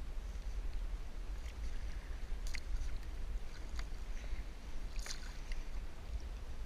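Water splashing and dripping at the side of a plastic kayak as a wet line is handled by hand, with three sharp splashy ticks a little over a second apart in the middle. A low rumble runs underneath.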